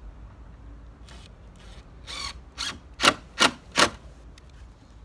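A series of short, sharp knocks on wooden boards, about two or three a second, the last three the loudest, as a board is fixed onto a wooden chicken house.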